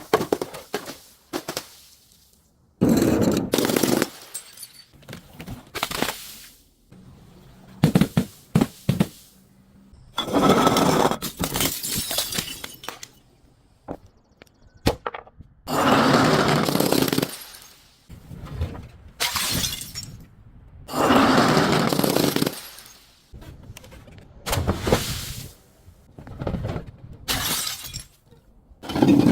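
Glass bottles being smashed and crushed: a series of about ten crunching, shattering bursts, each lasting one to two seconds, with short pauses between them.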